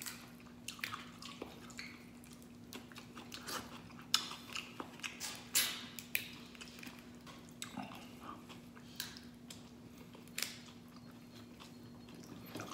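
Mud crab shell being cracked and pulled apart by hand, with chewing and sucking at the meat: irregular sharp crackles and clicks, the loudest about four and five and a half seconds in. A faint steady hum runs underneath.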